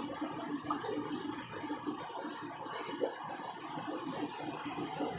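Aquarium filters and air pumps running: a steady hum with faint bubbling water.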